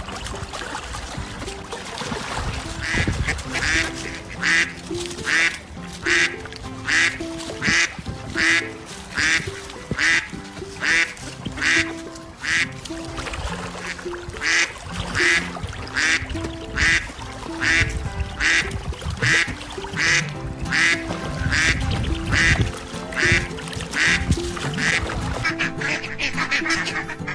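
A duck quacking over and over, roughly one quack a second, over background music.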